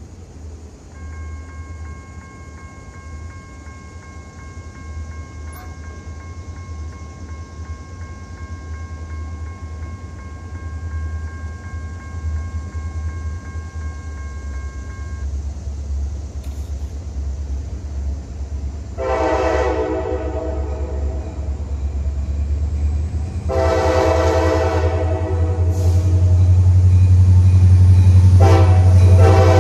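EMD SD40-2 diesel locomotive approaching under power, its 16-cylinder two-stroke engine a low rumble that grows steadily louder. From about two-thirds of the way in, its air horn sounds three long blasts for the grade crossing, each louder than the last.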